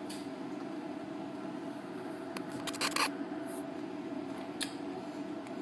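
A quick cluster of sharp clicks and taps about halfway through, with one more click near the end, from handling the glass bowl and utensils, over a steady low room hum.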